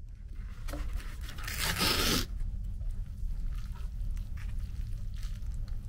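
A brief ripping sound about a second and a half in, lasting under a second, over a steady low hum.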